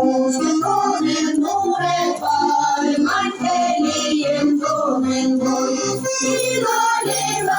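A Sami ensemble's song: voices singing a melody over music with a steady low beat.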